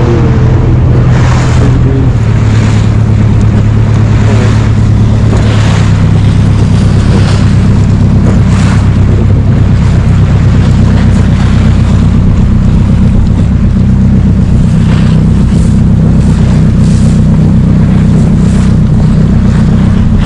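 A zodiac boat's outboard motor running steadily at speed, with a rushing wind-and-water noise that swells about once a second.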